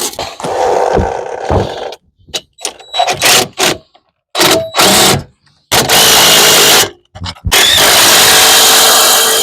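Power impact wrench run in bursts: a few short blips, then two longer steady runs with a high whine, tightening bolts during reassembly of the front wheel bearing.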